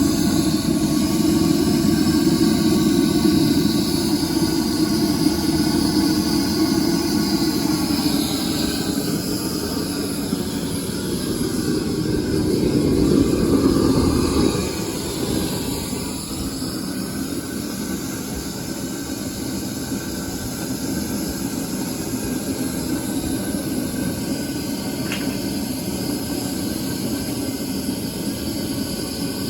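Propane torch firing a plaster-and-sand blast furnace while aluminum melts: a steady low rushing rumble. It swells a little, then drops to a quieter steady level about halfway through.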